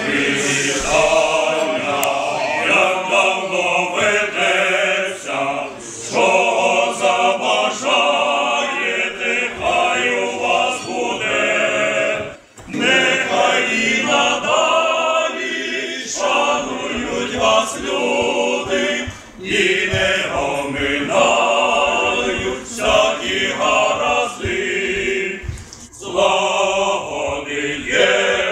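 Music: a choir singing, many voices together, in long phrases with a brief break about twelve seconds in.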